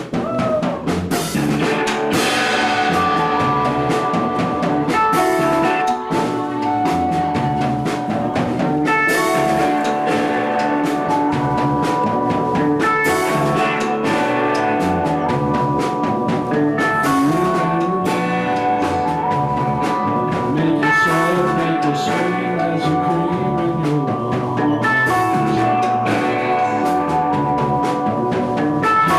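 A live band playing a song with no singing: a drum kit keeps a steady beat of cymbal and drum hits under held, pitched instrumental notes.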